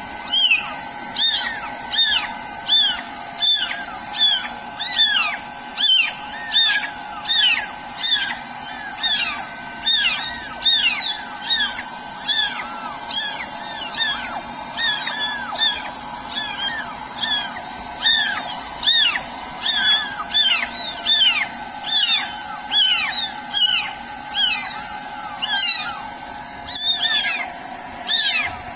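Kittens mewing over and over, about two short calls a second, each falling in pitch, over the steady whine of a hairdryer drying their wet fur.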